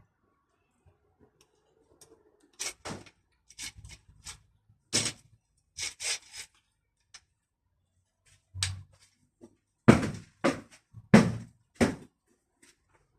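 Irregular knocks and clinks of hand tools and metal parts being handled and set down, scattered with quiet gaps, the loudest knocks coming in a quick run near the end.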